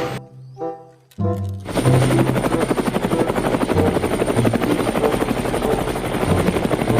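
Rapid, steady rattle of toy machine-gun fire, many shots a second, over background music. The rattle starts about two seconds in, after a brief pause and a short tone.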